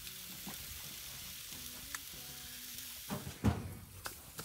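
Ribeye steaks sizzling on hot grill grates over charcoal, a steady hiss, with a couple of knocks near the end.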